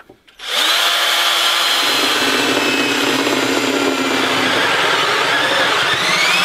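Cordless drill driving a hole saw through a wooden panel, starting about half a second in. The motor's pitch drops as the saw bites into the wood, then rises and falls near the end as the load changes.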